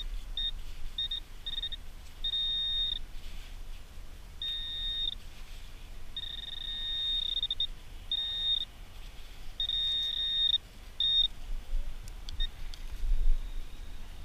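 Handheld metal-detecting pinpointer beeping as it is probed through the sand of a dig hole: a few short high beeps at first, then a run of longer steady tones at the same pitch, up to about a second and a half each, as it closes in on the buried metal target.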